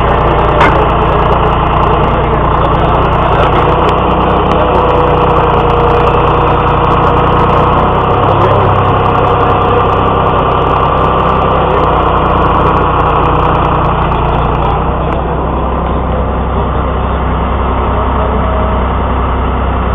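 Heavy truck engine running steadily at a constant speed.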